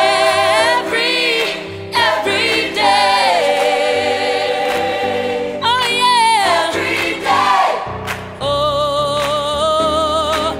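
Gospel choir music: voices singing long held notes with vibrato.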